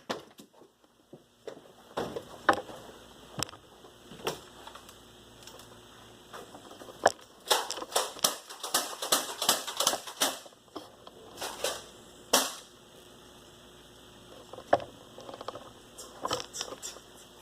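A run of irregular sharp clicks and knocks, some single and some in quick clusters, thickest about halfway through.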